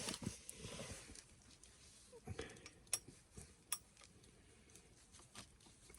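Faint, scattered clicks and light metallic clinks of hand tools being handled, a few isolated ticks spread through otherwise quiet room tone.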